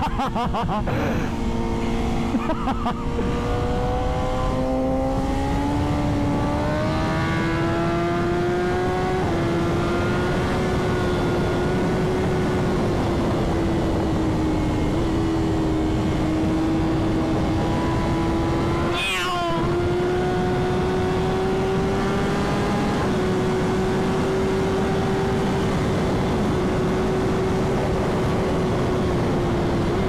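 Straight-piped BMW S1000RR inline-four engine running hard at about 120 mph, with wind rushing past. The engine pitch climbs a few seconds in, then holds mostly steady, with a short dip and break about two-thirds through.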